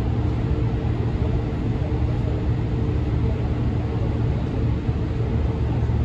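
Interior running noise of a JR Central 313 series 2300 subseries electric train with Toshiba IGBT-VVVF inverter drive: a steady low rumble of the wheels on the track, with two faint steady tones over it, running at an even speed.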